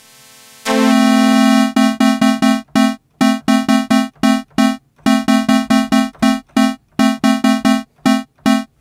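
Modal Electronics Cobalt5S synthesizer sounding one bright, buzzy note, held for about a second, then repeated in quick short stabs, roughly five a second, in runs with brief gaps.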